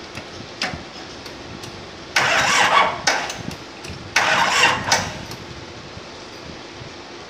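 Diesel engine of a fire-hydrant pump being cranked on its starter in two short attempts, each under a second and about two seconds apart, without catching: the engine has stood dead for ten years and is hard to start.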